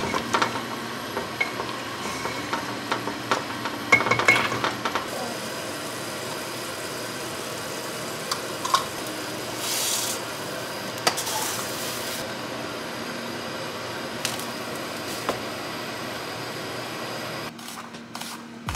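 A utensil stirring and clanking against a pot of biryani masala, with a steady low hiss underneath. About ten seconds in, dry rice is poured from a plastic measuring cup into a pot of boiling water with a short hiss. Near the end, a knife starts slicing a red onion on a wooden cutting board.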